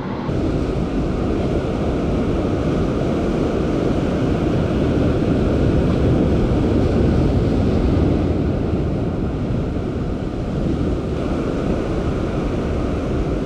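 Steady rushing of wind and ocean waves, with wind buffeting the microphone.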